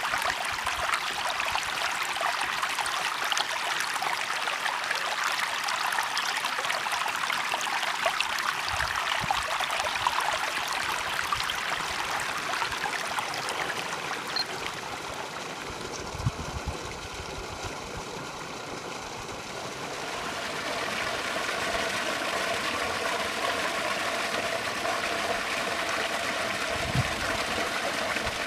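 A stream of running water flowing steadily, a continuous rushing murmur that eases off for a few seconds midway and then picks up again.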